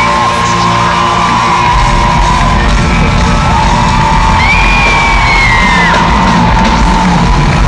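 Live pop concert music from an arena sound system, recorded loud, with fans screaming and whooping in long high cries over it. A deep bass grows stronger about two seconds in.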